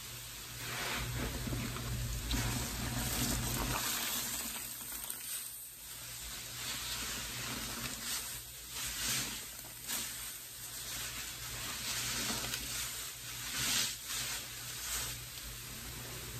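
Sponges squeezed in a bucket of sudsy pine-cleaner water, the foam sizzling and crackling. The sound swells in wet surges every second or two as the sponge is pressed and released.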